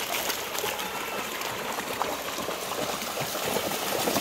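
Shallow floodwater running and splashing as goats wade through it, a steady rushing with many small splashes.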